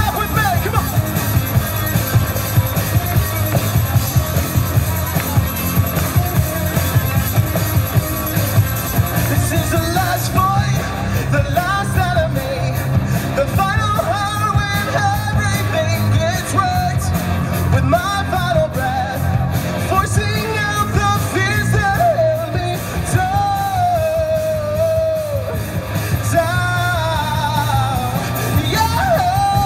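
Live rock band playing with drums, bass and electric guitar; a singer comes in about ten seconds in and carries the melody over the band.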